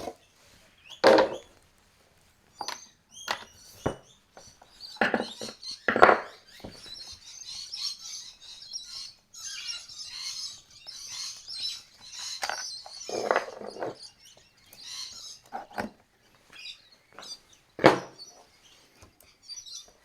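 Handling of a small chainsaw and hand tools as it is taken apart: scattered clunks and knocks a few seconds apart, with a thin, high chirping in the background through the middle.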